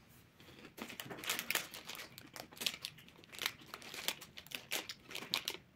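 Quiet, crisp crackling, a dense run of small crackles, from a dark-chocolate wafer snack being handled and bitten into close to the microphone.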